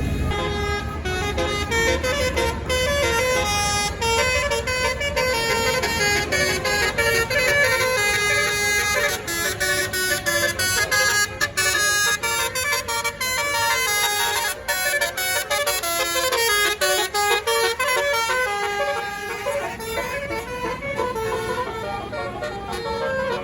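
Bus telolet horn of the basuri type playing a tune: a long run of quick notes stepping up and down. A bus engine rumbles low underneath at the start.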